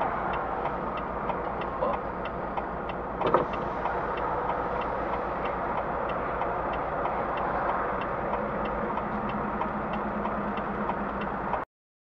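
A vehicle engine idling steadily, with a light ticking about three times a second and a single knock about three seconds in. The sound cuts off suddenly near the end.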